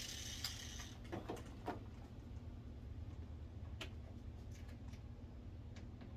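Faint scattered clicks and taps of screws, washers and a cordless drill being handled, over a low steady hum.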